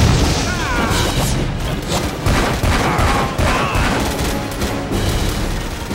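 Rapid automatic rifle fire mixed with sci-fi energy-weapon blasts and booms, a dense battle mix over background music.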